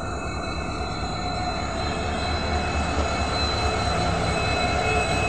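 Two coupled Indian Railways diesel locomotives passing close by: a steady engine drone and wheel rumble on the rails with a fixed high whine over it, growing a little louder as they go by.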